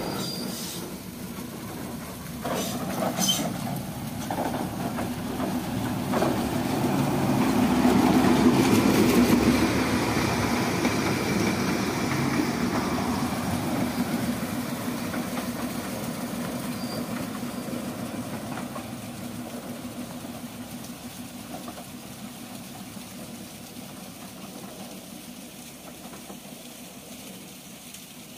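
Darjeeling Himalayan Railway narrow-gauge toy train approaching and passing close, its wheels rattling on the rails, loudest about a third of the way in, then fading slowly as it runs away down the line.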